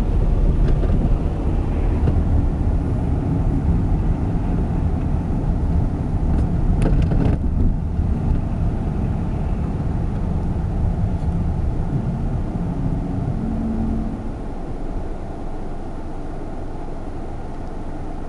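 Car running along a snowy street, with engine and tyre noise heard from inside the cabin as a steady low rumble. A short cluster of clicks comes about seven seconds in, and the rumble drops to a quieter level near the end.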